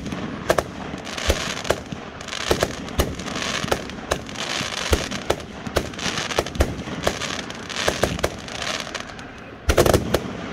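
Multi-shot aerial firework firing a steady run of shots, sharp launch pops about twice a second with a hissing, crackling rush between them. Near the end comes a quick cluster of louder bangs.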